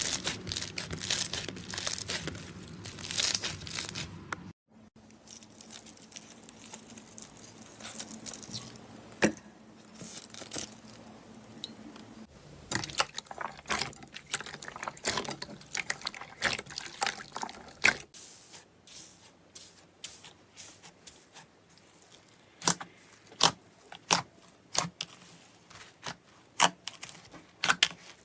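Hands squishing and stretching fluffy clay slime, which makes dense crackling at first, then sparser crackles and separate sharp pops of trapped air. The sound breaks off briefly twice, about four and a half and eighteen seconds in.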